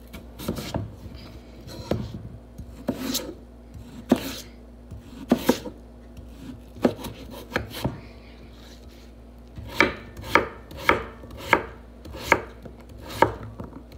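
Chef's knife chopping a peeled potato on a wooden cutting board: scattered knife strikes on the board at first, then an even run of about six chops a little over half a second apart near the end.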